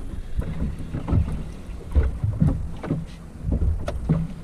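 Wind buffeting the microphone and waves slapping against the hull of a small boat at sea, in irregular low thumps.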